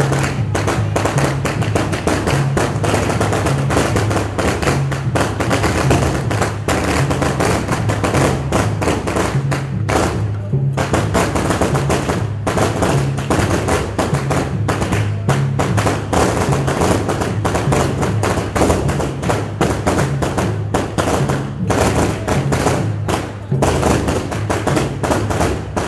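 Band music with a bass line that steps between low notes, under frequent sharp percussion hits.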